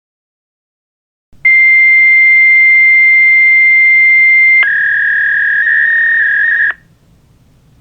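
Fax machine handshake: a loud steady high answer tone for about three seconds, then a slightly lower data tone that flutters between two close pitches for about two seconds before cutting off suddenly.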